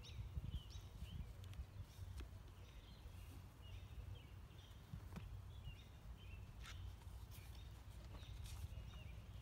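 Quiet garden ambience: small birds chirp faintly now and then over a low steady rumble. A few soft paper rustles and light taps come as pages are handled and a book is set down on the table.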